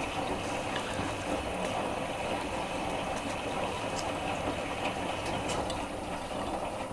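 Miele washing machine running at the start of its first rinse: a steady rushing of water and drum.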